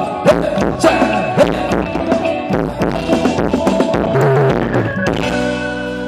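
Thai ramwong dance music from a band, with a drum kit beat and held melody notes; about five seconds in the drums drop out, leaving sustained notes.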